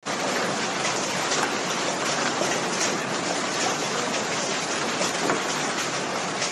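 Hail pelting down, a dense, steady clatter of many small impacts.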